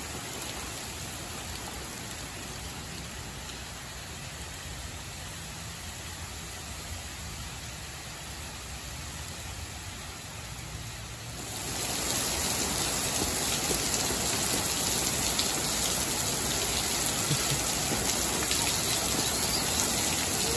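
Steady rain falling. A little over halfway through it grows clearly louder as it becomes a heavy downpour.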